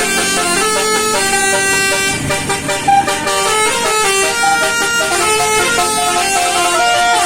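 Bus-mounted Basuri 12-note telolet musical horn playing a tune, its notes changing pitch in steps one after another, with a brief low rumble about two seconds in.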